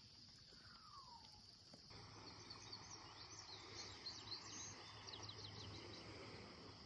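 Faint outdoor ambience: a steady high-pitched insect drone, with a run of quick bird chirps in the middle.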